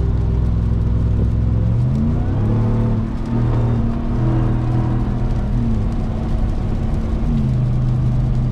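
Supercharged 6.2-litre Hemi V8 of a 2021 Ram 1500 TRX running on the move, its pitch stepping up and down several times as the revs change, over a steady noise of driving.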